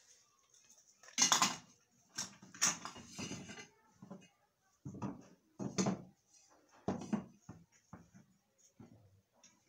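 Metal ceiling fan motor parts (the housing cover, rotor and shaft with its bearing) clanking and knocking as they are handled and set down, about ten separate knocks at uneven intervals.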